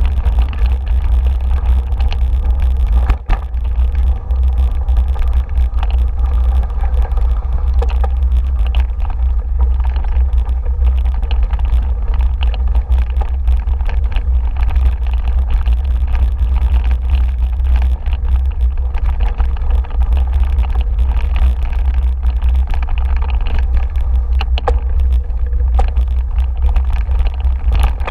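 A bike running fast over a bumpy woodland dirt trail, heard from a camera mounted on the bike: a steady heavy rumble of wind and vibration, with many small rattles and knocks from the trail. A sharper knock about three seconds in.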